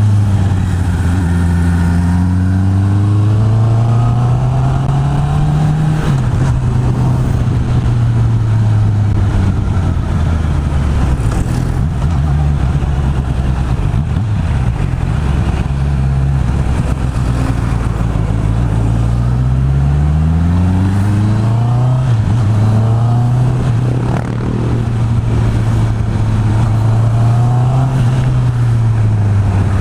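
Honda CB650R's inline-four engine through its stock exhaust under way. The pitch climbs as it accelerates and drops sharply at a gear change, twice, and otherwise holds steady or eases off.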